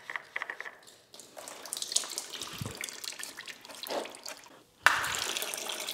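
Engine oil dribbling and splashing into a drain pan as the oil filter comes off, with a few clicks early on. A louder, steadier pour starts suddenly near the end.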